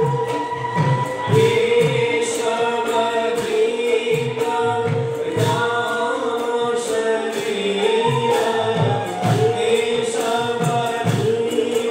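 Live devotional Sattriya dance music: male voices singing together over a steady held tone, with a regular beat of low percussion strokes and sharp metallic strikes.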